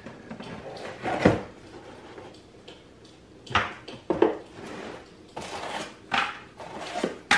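Lightsaber box and its packing tray being handled: a few sudden knocks and scrapes with pauses between them, the loudest about a second in.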